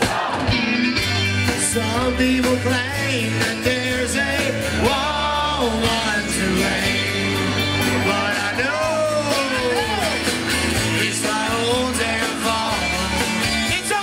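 Live rock band playing with drums, bass and electric guitar, and a lead melody sliding up and down over the beat.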